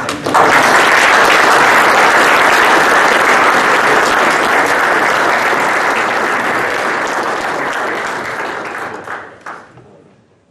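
Audience applauding at the end of a talk: steady applause that thins out after about eight seconds, with a few last claps before it stops.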